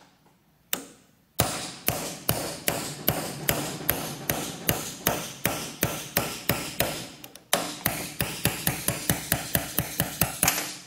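Hammer striking a pin punch to drive a roll pin out of a Monarch 10EE lathe's tailstock: one sharp metallic strike, then a steady run of strikes about three a second, each with a short ring. About three seconds before the end the blows quicken to about five a second.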